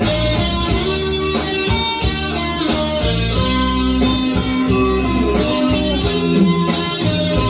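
Instrumental introduction of a Mandarin pop song's backing track: plucked guitar over bass and a steady beat, with no singing.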